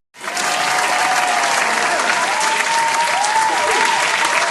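Loud applause from a large crowd, many hands clapping at once with cheering over it, starting abruptly.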